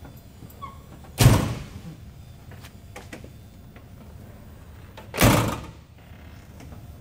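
Car door of a 1955 Chevrolet Bel Air being shut: two solid thumps about four seconds apart, each with a short ring-out.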